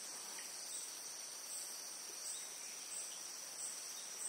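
Insects in the lakeside forest chirring steadily at a high pitch, with a pulsing call repeating about every three-quarters of a second.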